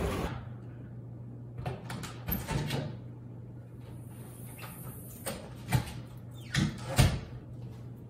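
A house door being opened and shut, with several knocks and thuds and a few footsteps, the loudest thuds close together near the end, over a steady low hum.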